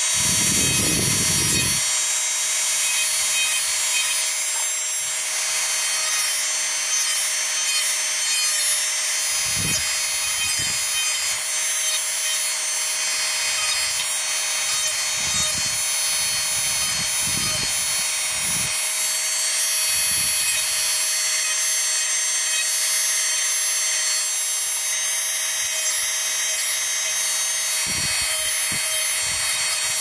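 Handheld rotary tool running at high speed with a steady high-pitched whine, its small sanding drum grinding the rough cut edges of a cut-out letter in a white disc. Rasping scrapes come and go as the drum is pressed against the edge.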